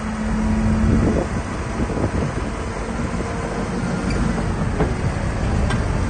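Heavy diesel dump trucks running while a raised tipper body unloads rock and soil. The sound is a steady low rumble with a couple of faint held tones.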